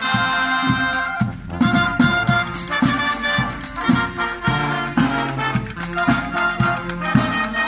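Marching wind band playing a tune on the move: trumpets, saxophones and sousaphone holding sustained melody notes over a steady snare-drum marching beat.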